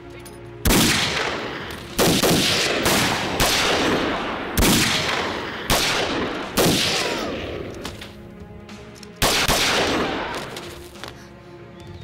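A series of about eight loud, sharp bangs, each fading away over a second or so, coming roughly a second apart with a longer pause before the last one, over faint background music.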